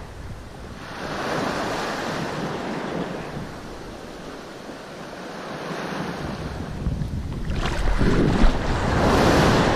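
Small waves washing in shallow surf, swelling twice, with wind gusting on the microphone during the second swell.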